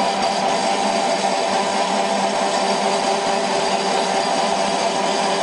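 Small flat-die pellet mill running steadily while pressing out pellets: a continuous machine hum with a few steady tones over a hiss.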